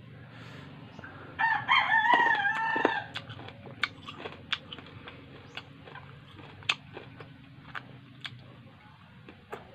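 A rooster crows once, a call of about a second and a half starting about a second and a half in. Scattered faint clicks follow as a fresh lemon is chewed.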